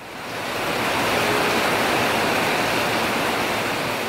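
Heavy rain pouring down: a loud, steady hiss that swells in over the first second and eases a little toward the end.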